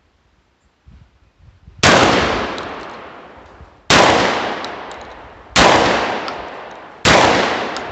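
Hatfield SAS 12-gauge semi-automatic shotgun firing four shots, spaced about one and a half to two seconds apart, each report dying away over a second or more. The action cycles every round without a jam.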